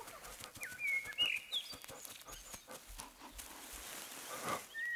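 Wolf pups making soft whimpers and a few short high squeaks over light scuffling and rustling.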